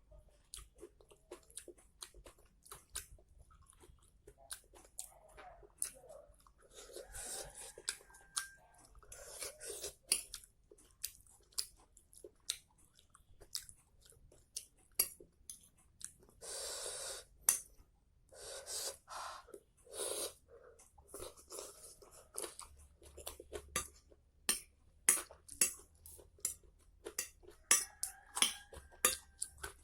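Close-miked eating of mie nyemek (saucy noodles): steady chewing with wet mouth clicks and smacks, and several slurps about a second long in the first two-thirds.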